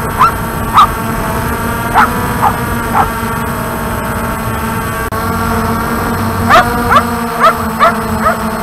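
Walkera QR X350 Pro quadcopter's motors and rotors humming steadily, heard close from the aircraft itself, while a dog below barks sharply at it: a few barks in the first three seconds, then a quicker run of barks near the end.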